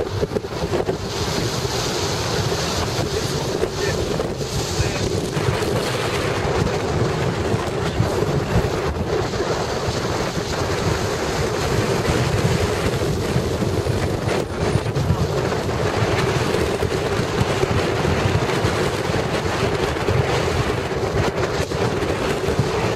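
Steady road and wind noise inside a moving car, with wind buffeting the microphone.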